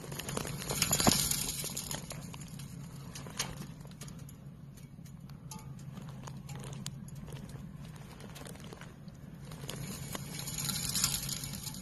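Raw egg freezing on a sheet of ice in severe cold, giving off scattered sharp crackling pops, over a faint low hum.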